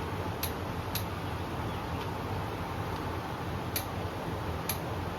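Four sharp metallic clicks, irregularly spaced, from a ratchet-head wrench working the 9/16 connecting-rod cap bolts of a V8 under rebuild, over a steady low hum.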